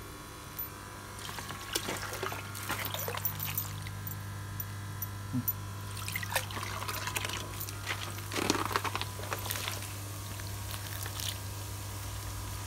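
Water splashing and trickling in a few irregular bursts as a mesh net holding fish fry is worked in a bucket of water and lifted out, dripping. A steady low hum runs underneath.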